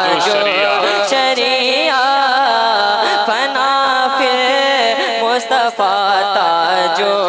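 A young man singing an Urdu devotional naat solo, in long held notes ornamented with wavering, gliding melismas.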